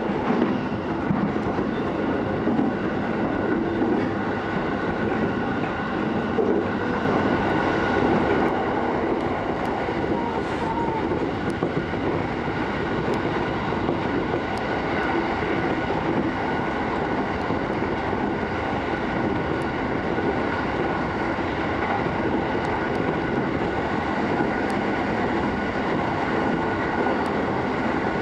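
Running noise inside a Keiyo Line E233-series electric train at speed: a steady rumble of wheels on rails, with steady high whining tones from the traction motors.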